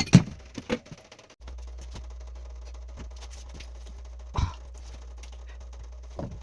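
A few sharp knocks or clunks: a loud one right at the start, a smaller one just after, and another a little past four seconds in. A steady low hum sets in about a second and a half in.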